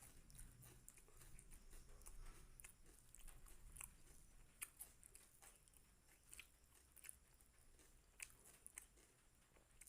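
Faint chewing of a mouthful of chicken liver and gizzard curry with rice, with irregular soft wet mouth clicks, the sharpest a little before halfway.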